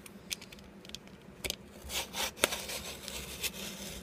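Utility knife blade slicing through packing tape along the edge of a cardboard box: faint scraping with scattered short ticks and rasping strokes.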